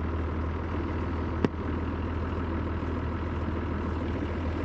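Engine idling steadily, with a single sharp click about a second and a half in.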